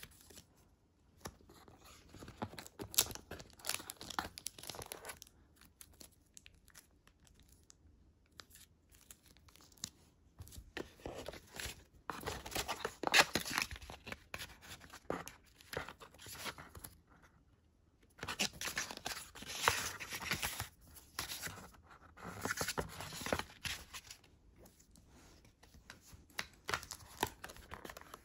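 Smartphone packaging being torn and crinkled open by hand, in several spells of rustling and ripping a few seconds long with quiet gaps between.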